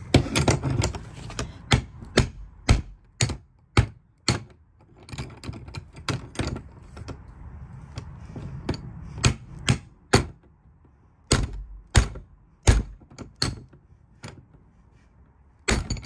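A crowbar repeatedly whacking a laminated steel padlock on a metal hasp: about two dozen sharp metal clanks at a rate of one or two a second, with a couple of short pauses between runs of blows.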